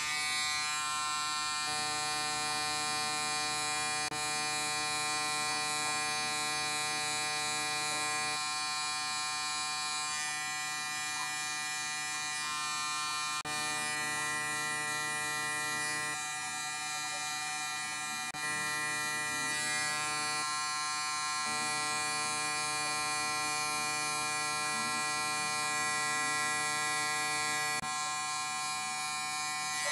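Corded electric hair clippers running with a steady buzz while cutting hair at the temple and sideburn. The tone shifts slightly every few seconds.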